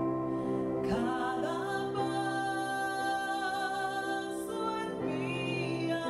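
Music: a singer holding long notes over a sustained instrumental backing, with pitch glides about a second in and again about five seconds in.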